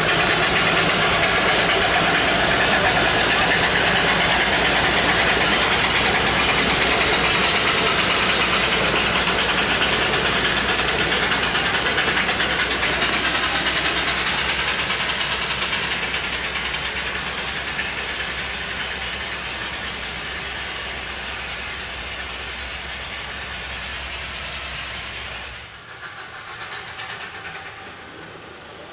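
Ridable miniature railway train running past: a steady hiss with a low hum and wheels on the rails, fading gradually as it moves away, then dropping suddenly to a quieter, more distant sound about three seconds before the end.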